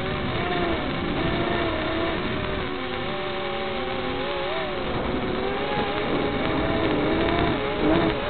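Brushed motors of a micro quadcopter (Hubsan X4 107C motors on a Diatone Beta 110 v2 frame) whining in flight, their several pitches constantly wavering up and down as the throttle and attitude change, over a steady hiss.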